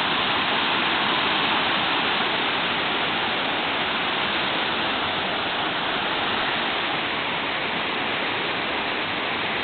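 Whitewater rapids of a river rushing over rocks: a steady, unbroken rush of water.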